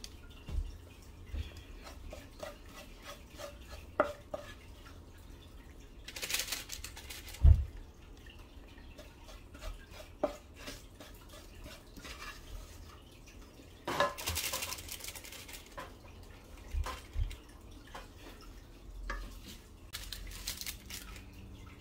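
Wooden spoon scraping and knocking against a metal pan as thick cooked milk-and-sugar paste is scooped out, with scattered light clicks, three longer scrapes and one low thump.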